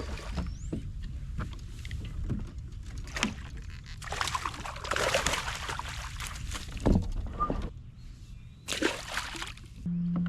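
Water sloshing and splashing in irregular bursts over a low rumble, with music starting near the end.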